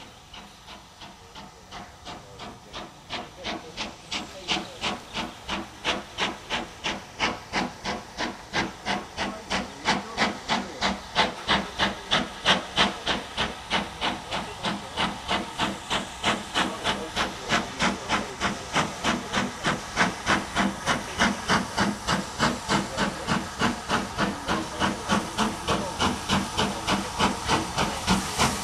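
Steam locomotive working toward the listener, its exhaust beating in even chuffs about three a second, growing louder as it approaches.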